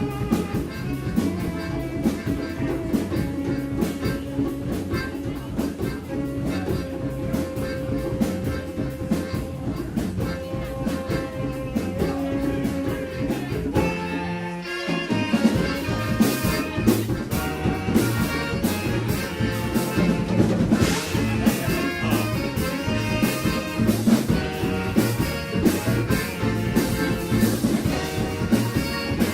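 Live brass band with horns and a drum kit playing a Balkan-style dance tune. About halfway through the band drops out briefly, then comes back in fuller and louder with more cymbal.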